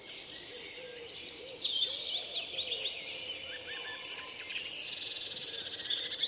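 Several birds singing and chirping at once, a dense chorus of quick high notes and trills that grows fuller toward the end.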